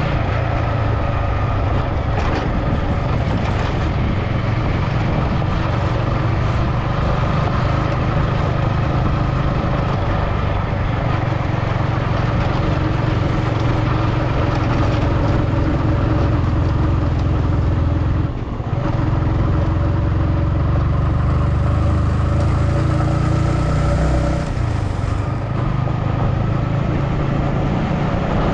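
A motor vehicle on the move: steady engine hum and road noise, with a brief drop in level about two-thirds of the way through.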